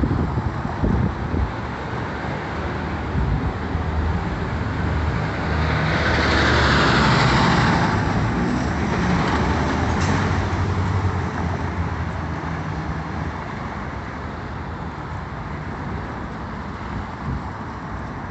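Street traffic: cars and a semi-trailer truck drive past, their engines and tyres giving a steady rush with a low engine drone. The noise swells to its loudest about six to eight seconds in as the truck goes by, then eases off.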